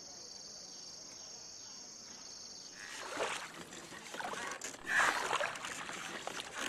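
A steady, high-pitched insect drone for the first few seconds, then three splashy strokes of a rowing boat's oars in the water, the loudest about five seconds in.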